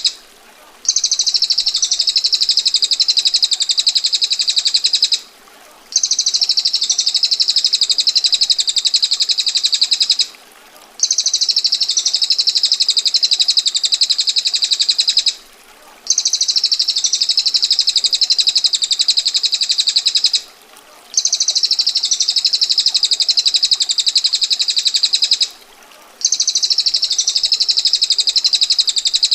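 Female prinia (prenjak betina) giving its rapid, tight rattling trill ('ngetir') again and again, each rattle lasting about four and a half seconds with a short break between, over a faint steady sound of running water.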